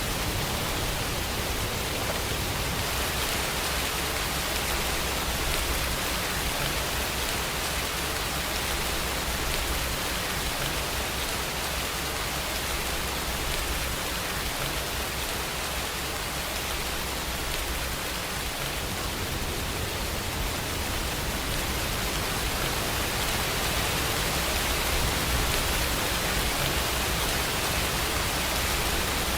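Steady rain, an even hiss of falling drops with a low rumble beneath it.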